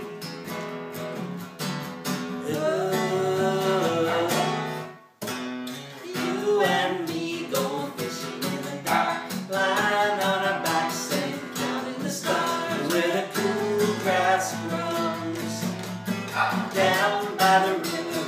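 Two acoustic guitars strumming a country song in a break between verses, with a melody line over the chords. The sound drops out suddenly for a split second about five seconds in.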